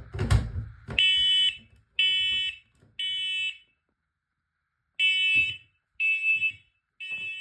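Smoke alarm sounding on its test button: two sets of three loud, high-pitched beeps, each about half a second long, in the temporal-three evacuation pattern. A few knocks come in the first second, just before the beeping starts.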